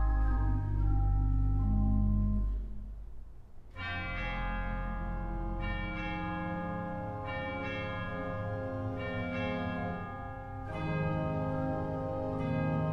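Instrumental background music. A sustained chordal passage fades out, and about four seconds in a new passage begins with a fresh chord struck roughly every second and a half or two, each ringing on.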